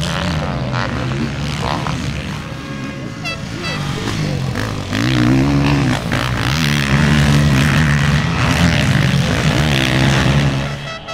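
Motocross bike engines revving hard, the pitch rising and falling as the throttle is opened and chopped for jumps. The engines grow louder about halfway through as a bike comes close.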